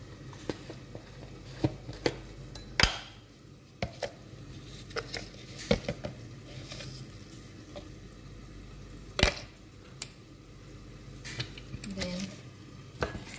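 Scattered clinks and knocks of utensils against a bowl and dishes, about a dozen at irregular spacing, the loudest a little after nine seconds in. Under them runs a faint steady sizzle from the vegetables frying in a covered pan.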